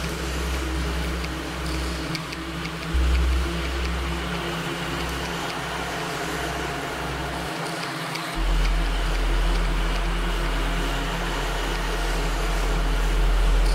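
Quadcopter's electric motors and propellers buzzing steadily in flight, heard from the onboard camera, over a low wind rumble on the microphone that surges about three seconds in and cuts out for a moment near the eight-second mark.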